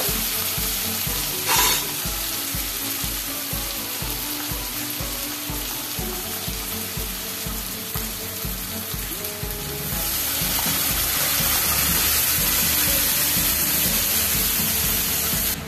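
Onion-tomato masala sizzling in hot oil in a kadai, with a spatula scraping against the pan as it is stirred. The sizzle grows louder for the last few seconds as cooked chana dal is poured in.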